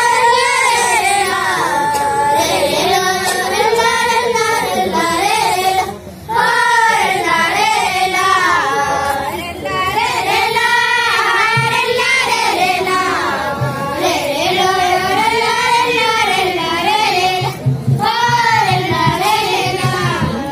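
Girls' voices singing a Gondi rela song together, in long rising and falling phrases with short breaks between them.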